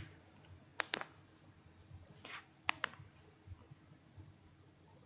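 Faint sharp clicks: two quick pairs about two seconds apart, with a brief hiss between them, over low background noise.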